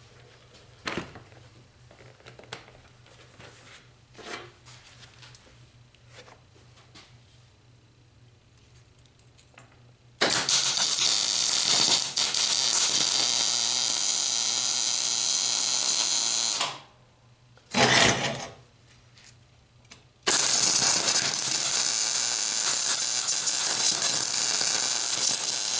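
Electric arc welding on galvanized scrap steel: a few quiet seconds of small handling clicks, then the arc runs loud for about six seconds, briefly again after a short pause, and for another six seconds near the end. The welder blames the zinc coating he didn't fully clean off the steel for his poor welds.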